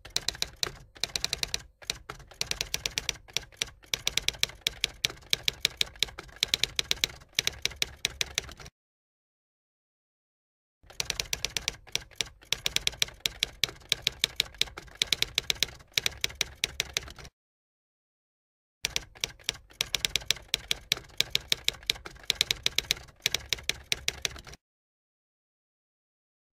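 Typewriter keys clacking in quick runs of clicks, three stretches of typing with dead silence between them.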